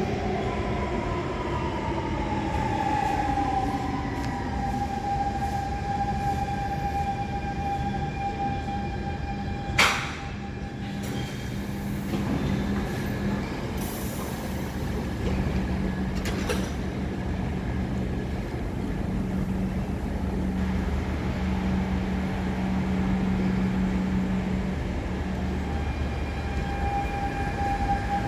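SMRT North–South Line electric train in an underground station: its electric whine falls in pitch over the first few seconds, then holds steady. A single sharp clunk about ten seconds in is the loudest moment. A steady low hum follows, and the whine comes back near the end.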